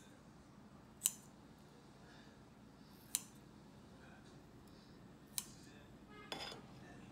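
Kitchen scissors snipping through slices of cooked beef on a plate, three sharp snips a second or two apart, followed by a short clink near the end.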